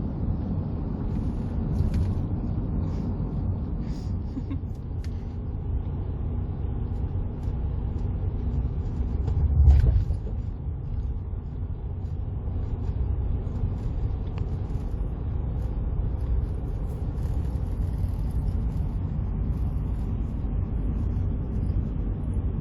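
Steady low rumble, with one louder low thump about ten seconds in.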